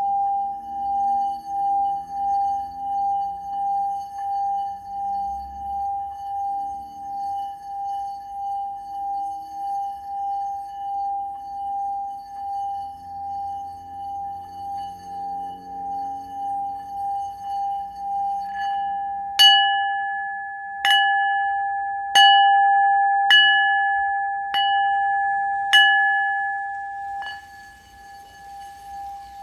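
A singing bowl ringing with one steady tone that pulses in loudness. About two-thirds of the way in it is struck six times, roughly once every second and a half, and a last fainter strike follows before the ringing dies down near the end.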